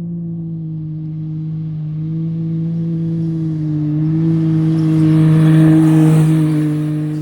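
An off-road race vehicle's engine holding a steady pitch as it draws closer. It grows louder, with a hiss building alongside, is loudest about six seconds in, and starts to fade near the end.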